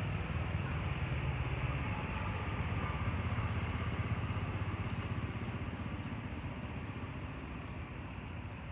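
An engine running steadily, a low drone that swells a little in the middle and eases toward the end.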